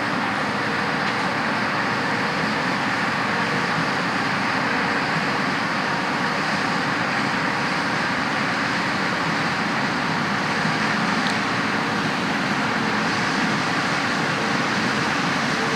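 Heavy farm machinery running steadily: a constant engine and mechanical drone at an even level, with no revving or break.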